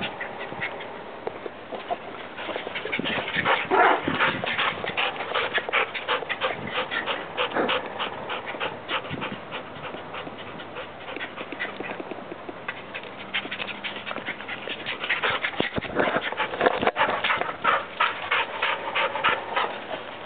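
Yellow Labrador retriever panting close up, quick rhythmic breaths that come in stronger spells.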